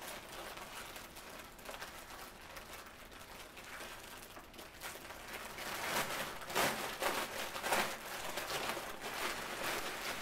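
Thin clear plastic bag crinkling and rustling as folded trousers are handled and pulled out of it, with louder bursts of crackling about six to eight seconds in.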